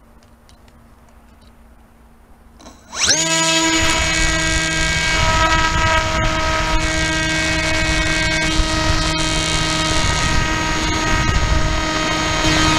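Skywalker 1900 FPV plane's electric motor and propeller spinning up sharply about three seconds in: a quick rising whine that settles into a loud, steady high-pitched drone at full throttle as the plane is launched and climbs. Before that there is only faint hiss.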